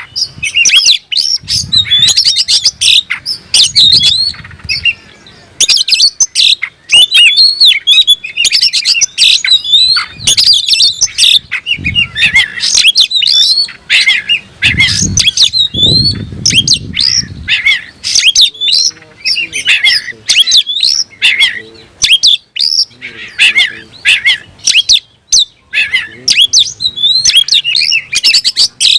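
Oriental magpie-robin singing loudly and without pause, a fast run of varied whistles, chirps and harsher notes: the full, challenging song of a male in form that is answering a rival. A few low rumbles sound beneath it.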